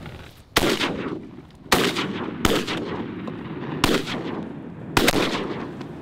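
Waterfowl hunters' shotguns firing at passing ducks: about five shots in quick, uneven succession, each trailing off in an echo.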